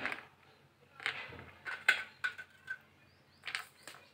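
Ice cubes clinking against a drinking glass as they are dropped into a glass of raw-mango sherbet: a string of sharp clinks, some with a brief ring.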